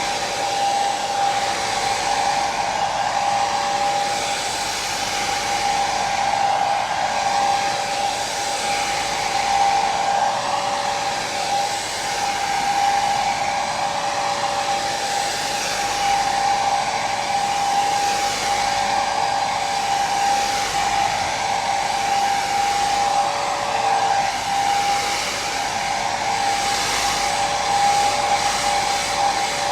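Hair dryer running steadily: a continuous rush of air with a steady motor whine held on one pitch.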